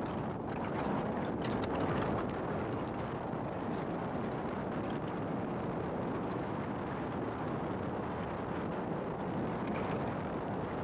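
Steady road noise of a car driving, with tyre and engine noise blended into an even, unbroken rush.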